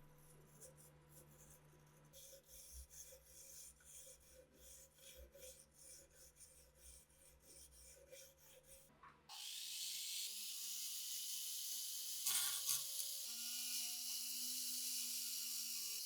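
Quick, repeated hand rubbing strokes of an abrasive working a rusty rifle part. About nine seconds in, this gives way abruptly to a louder steady hiss with a hum that rises in pitch as it starts.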